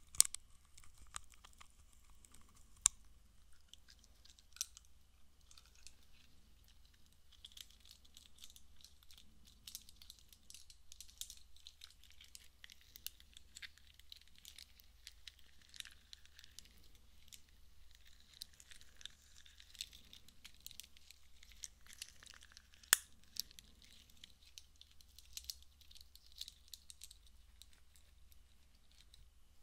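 Close-miked ASMR handling sounds: faint crinkly crackling and rustling right at a binaural microphone, with a few sharp clicks, the loudest near the start and again late on.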